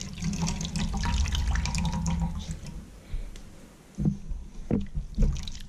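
Wet grated coconut squeezed by hand over a stainless steel bowl, the coconut milk squelching and dripping into the bowl. It goes quieter about three seconds in, then a few separate splashes come near the end.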